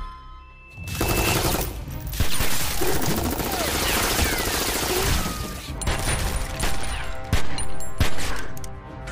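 Long, sustained bursts of automatic gunfire that start abruptly about a second in, after a short lull.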